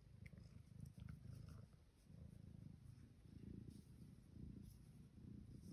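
Domestic tabby cat purring faintly while being stroked, a low rumble that swells and fades in cycles about a second long.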